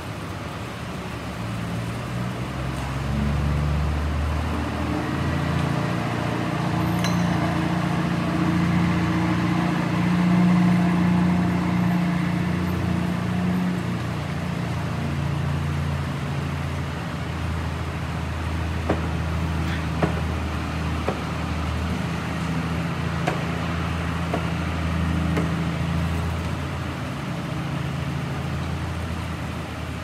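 Diesel engines of heavy demolition machinery, an excavator and dump trucks, running steadily and swelling in load for a while. A few short sharp clinks of metal and debris come in the middle of the second half.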